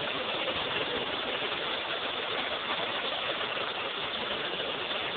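Heavy hail falling: a dense, steady clatter of countless small hailstone impacts on the ground, paths and roofs, with no rain mixed in.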